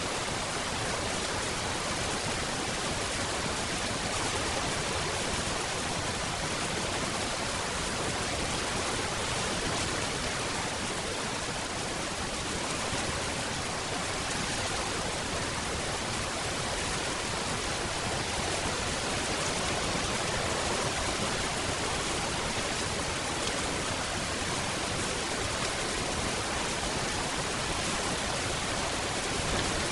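Steady rain falling, an even wash of noise without distinct drops or thunder.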